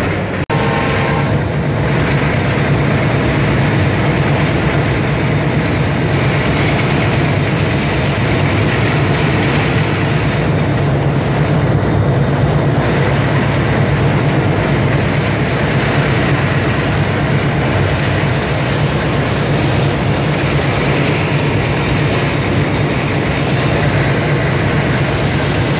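Diesel locomotive running under way, heard from inside the cab: a loud, steady mix of engine drone and wheels on the rails, with a strong low hum.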